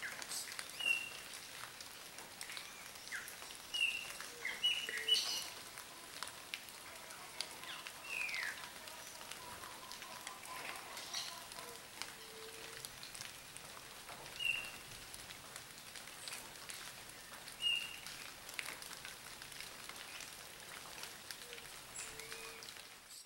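Rain pattering and dripping, with short, high chirping calls from small birds every few seconds and a quick cluster of calls about four to five seconds in.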